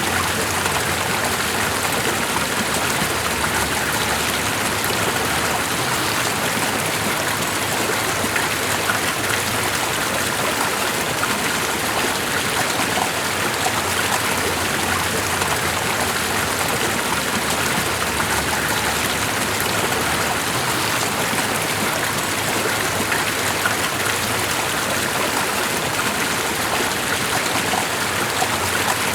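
Steady rushing water, an even hiss flecked with fine splashing and dripping, without a break or change.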